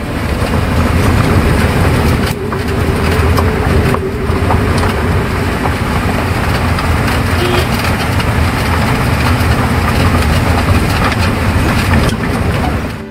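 A vehicle driving on a rough dirt road, heard from on board: engine and road noise, with jolts and knocks as it goes over the bumps.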